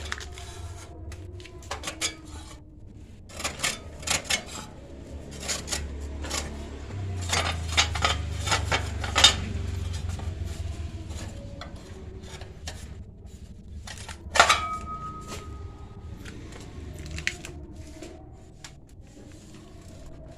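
Steel bar clinking and tapping as it is worked and bent into rings, with scattered sharp metallic knocks and one louder clang about fourteen seconds in that rings briefly.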